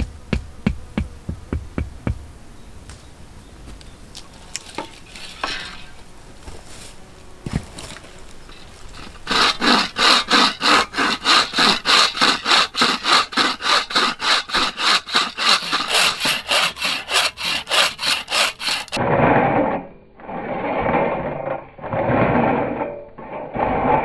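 Wooden-framed bow saw cutting through a birch branch, preceded by a few sharp clicks. The main run is fast, even push-pull strokes, about four a second. Near the end it changes to slower, longer strokes.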